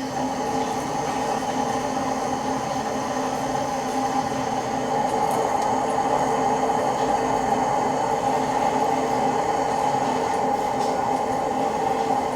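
Water rushing through the supply pipes into the water heater as the water is turned back on after a leak repair, the tank refilling. It is a steady rush with a humming tone, getting a little louder a few seconds in.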